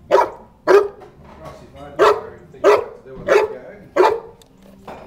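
Newfoundland dog barking six times at a remote-control toy car: two barks, a pause of about a second, then four more at an even pace.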